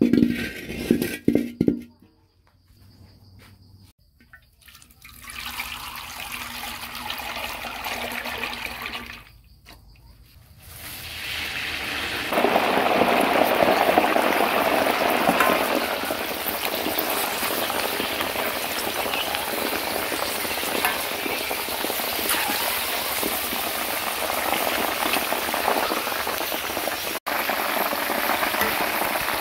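A few loud knocks at the start, then hot oil sizzling and bubbling as dung beetles deep-fry in a wok over a wood fire; the frying turns loud and dense about twelve seconds in and stays steady.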